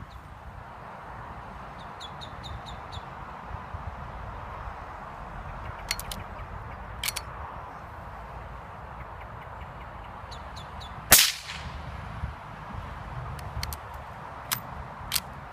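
A single shot from a .17 HMR rifle fitted with a Nightingale moderator (suppressor), firing a Hornady 17-grain V-Max round, about eleven seconds in: a short sharp crack with a brief echoing tail, over a steady outdoor hiss. A few much fainter clicks come before and after it.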